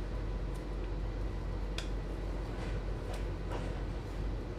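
Muffled steady low hum from an Adtranz/Bombardier GT6M low-floor tram, with a few faint ticks.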